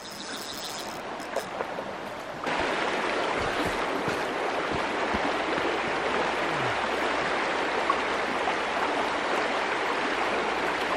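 Shallow mountain stream rushing over stones, a steady wash of water. It is quieter at first and gets louder about two and a half seconds in.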